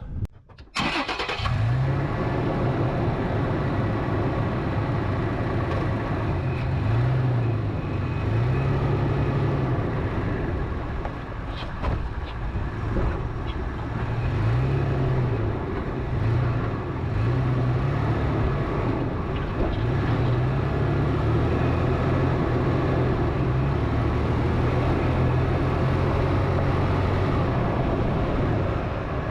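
Toyota FJ Cruiser's V6 engine running while it drives slowly over a rough, rocky trail, the revs rising and falling again and again, over a steady wash of tyre and suspension noise. The sound cuts out briefly at the very start.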